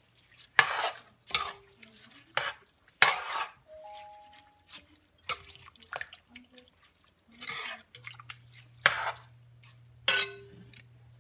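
A metal spoon stirring rice and pak choi in coconut milk in a large metal pot: irregular wet sloshes and spoon scrapes against the pot, roughly one a second.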